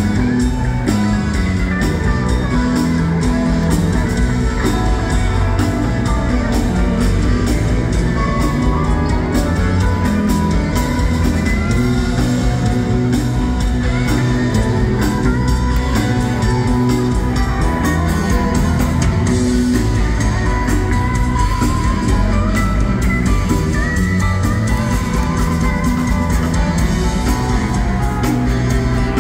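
Live rock band playing: drums, bass, keyboards and electric guitars, with a lead electric guitar line bending and gliding over the band, heard through a phone's microphone from the crowd.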